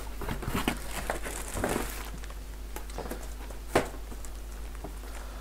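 Rustling and crinkling of cardboard and packing as hands rummage inside a shipping box, with a single sharp knock about four seconds in.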